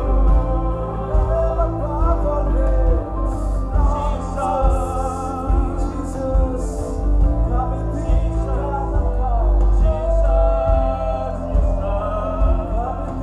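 Live church worship music: a large choir singing with band accompaniment, held bass notes underneath.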